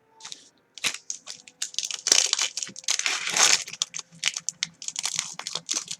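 Trading card pack wrapper crinkling and crumpling in the hands, in a run of irregular crackles.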